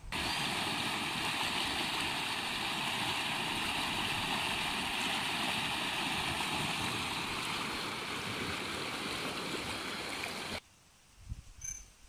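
Fast river water rushing over rapids in a steady, even rush. It cuts off abruptly about a second and a half before the end, leaving a quiet background with a few faint low bumps.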